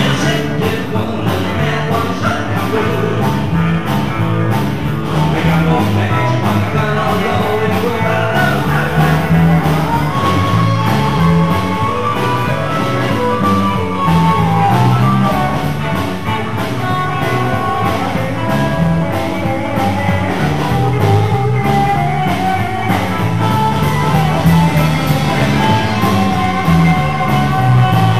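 Live rockabilly band playing rock and roll: a singer over electric guitar, a moving bass line and a steady drum beat.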